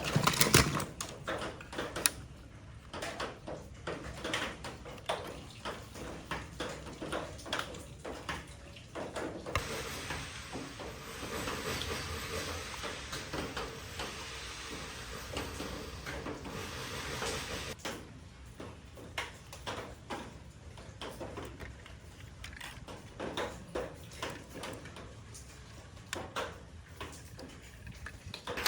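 Clicks and knocks of a plastic Transformers toy figure being handled, with its parts being moved. From about a third of the way in, for roughly eight seconds, a steadier rustling noise runs under the clicks.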